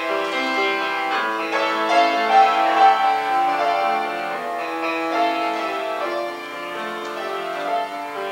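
Samick grand piano playing a solo interlude in a Korean art song, with no voice over it.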